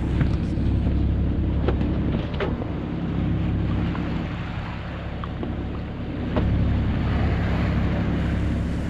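A sailing yacht's inboard engine running slowly with a steady low hum, under wind noise on the microphone, with a few small knocks aboard.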